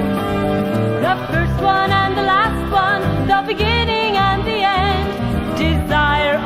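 Music: a Christian pop song, a wavering lead melody with vibrato over a bass line and accompaniment.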